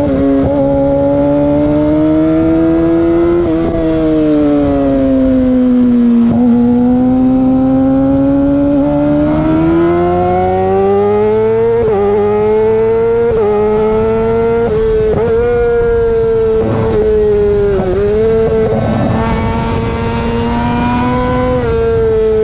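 Loud motor-vehicle engine running under throttle, its pitch slowly rising and falling. Around the middle it makes a run of quick dips in pitch, each followed by a climb.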